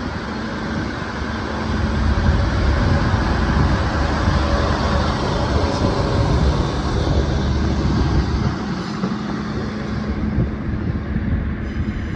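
Class 153 diesel railcars moving along the platform, their underfloor diesel engines running with a steady low drone under the rumble of wheels on the rails, getting louder about two seconds in.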